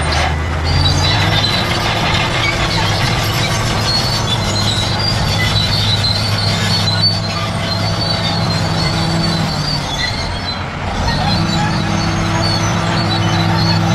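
Bulldozer diesel engine running, with the high squeal of its steel tracks over it. The engine note fades briefly about ten seconds in, then picks back up.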